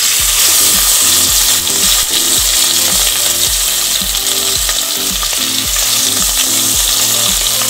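Marinated chicken pieces sizzling in hot oil in a pan: a loud, steady frying hiss that starts suddenly as the first piece goes in, with more pieces added a few seconds later.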